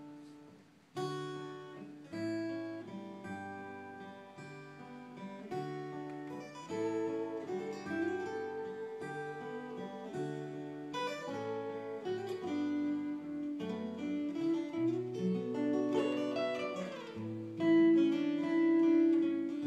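Instrumental guitar intro to a slow country-folk song, played live. An acoustic guitar plays chords under a lead guitar's melody line, coming in sharply about a second in and getting louder toward the end.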